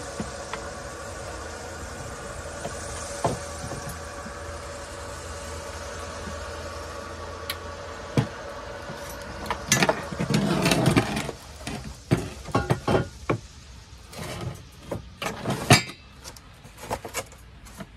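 A steady hum with a faint hiss, then, from about halfway in, a run of sharp clanks, clinks and knocks as a stainless steel box-section frame and welding gear are handled.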